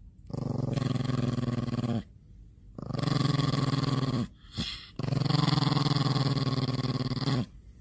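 Small Chihuahua growling in three long, steady growls with short pauses between them, lips curled back: a warning growl at an orange held up to its face.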